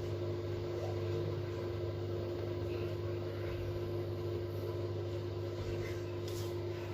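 Hisense PureJet Steam 10 kg washing machine on its final spin at 800 rpm: a steady hum with a steady whine, the drum holding speed.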